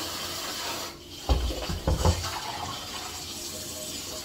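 Kitchen tap running water, broken about a second in by several low clunks of cookware being handled in the sink, with the water running on after them.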